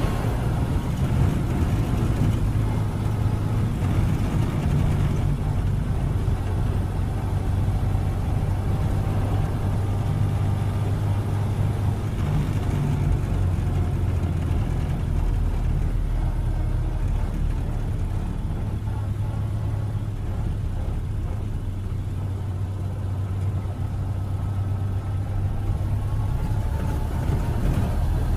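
1931 Ford Model A's four-cylinder engine running steadily with a low, even hum.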